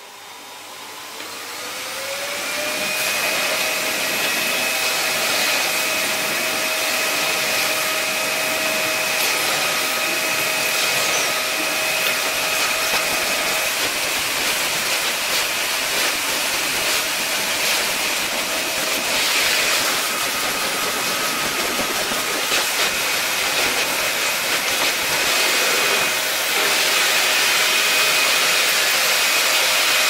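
Bagged canister vacuum cleaner on its most powerful setting, its motor spinning up with a rising whine over the first couple of seconds, then running steadily: a high whine over a rush of air as the nozzle works the carpet.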